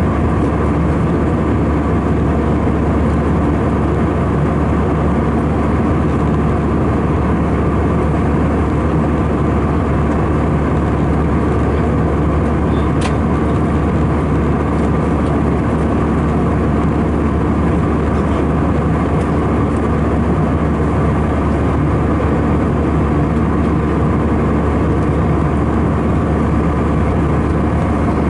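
Steady cabin drone of an Airbus A319-111 in flight, heard from a passenger seat inside the cabin: engine hum mixed with the rush of air along the fuselage. There is one faint click about halfway through.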